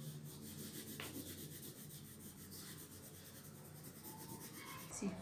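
Coloured pencil scratching on paper in quick, continuous back-and-forth strokes, shading in a broad area. It is faint.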